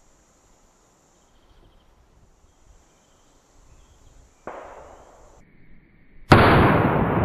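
A single rifle shot from a Winchester Model 1895 lever-action chambered in 7.62x54R, very loud, about six seconds in, followed by a long echo that dies away slowly. A fainter thump comes about a second and a half before it.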